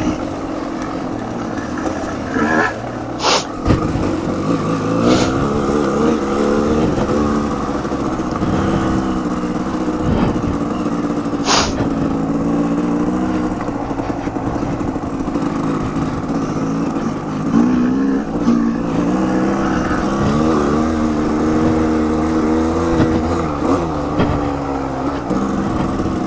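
Off-road motorcycle engines running, with the pitch rising and falling as the throttle is worked. There are two sharp clicks, one a few seconds in and another near the middle.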